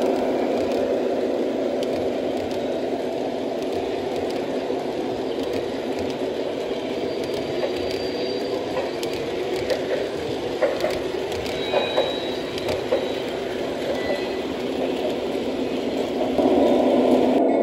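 O-gauge model train rolling past on three-rail track: a steady rumble of wheels and motors, with a few sharp clicks partway through. The rumble grows louder again near the end.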